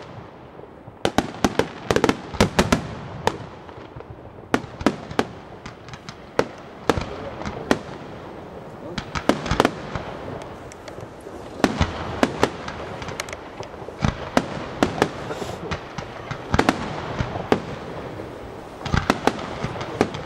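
Bruscella Fireworks aerial display: many sharp bangs of bursting shells in quick, irregular succession, over a continuous crackle.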